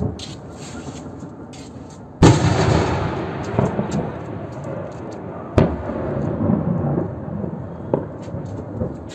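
A distant explosion: a sudden loud boom about two seconds in that rolls on as a rumble for a few seconds, then a second sharp bang about midway, with a few fainter thuds after.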